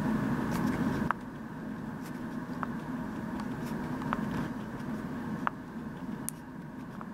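Colored pencil scratching across paper in short coloring strokes, with a faint sharp tick every second or so. A low background hum drops off about a second in.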